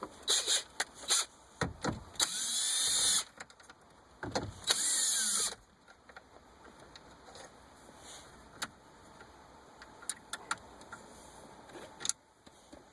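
Small electric screwdriver motor whirring in two short runs of about a second each, its pitch rising and falling, as it backs out the radio's Phillips mounting screws. Scattered clicks and knocks of the screws and tool being handled come in between and afterwards.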